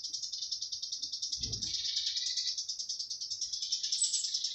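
A steady, high, rapidly pulsing insect chorus, cicada-like, from the summer trees, with a few faint bird chirps and a brief low thump about one and a half seconds in.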